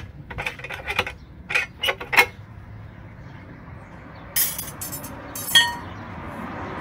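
Steel wire rod knocking and clicking against a homemade angle-iron stirrup bender as a stirrup is bent, a quick series of sharp metallic taps over the first two seconds. About four and a half seconds in, a metal rattle ending in a short ringing clank.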